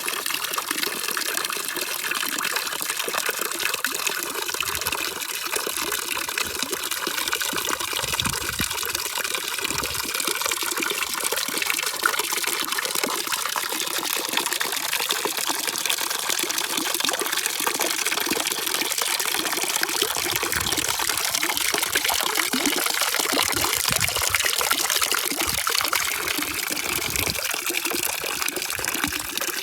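Running water: a steady, continuous rush and splash with no breaks, its hiss sitting mostly in the higher pitches.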